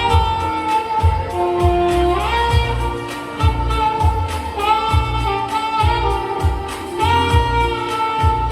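Saxophone playing a slow melody of long held notes over a backing track with a steady beat.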